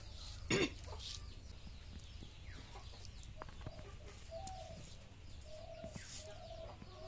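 Domestic chickens clucking. One loud call about half a second in, then a run of short, low clucks through the second half.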